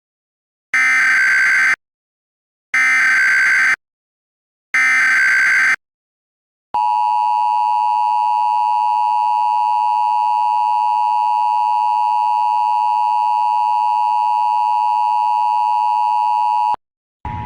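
Emergency Alert System tones: three SAME header data bursts of about a second each, with short gaps between them, then the steady two-tone (853 and 960 Hz) attention signal held for about ten seconds before it cuts off suddenly. Together they announce an incoming alert message, here a nationwide test.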